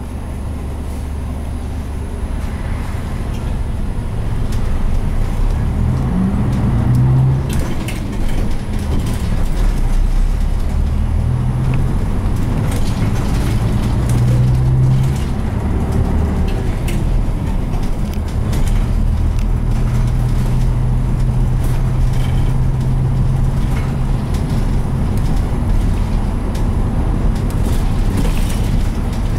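Mitsubishi Fuso Aero Star city bus's turbocharged 12.9-litre 6M70 diesel pulling away and accelerating through the gears of its manual gearbox, heard from inside the bus. The engine note climbs as it moves off, changes pitch at the gear changes, and settles to a steady run from about twenty seconds in, with small clicks and knocks from the cabin.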